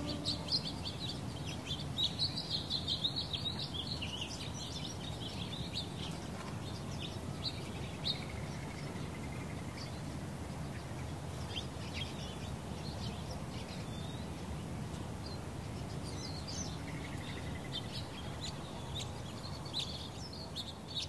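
Small birds chirping, most busily in the first few seconds and more sparsely after, over a steady low outdoor background rumble.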